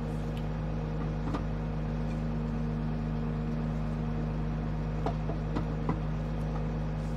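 Truck engine running with a steady low drone, heard in the cab while driving.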